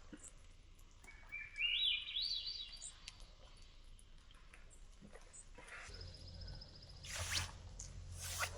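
A songbird sings a short phrase of quick notes that climb in pitch step by step, about a second in. Later come a low rumble and two brief rustling sounds.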